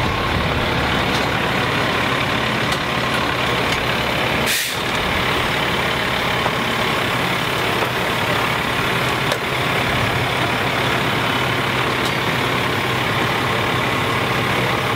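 A large truck's engine running in a loud, steady drone, with a brief hiss and a short dip in level about four and a half seconds in.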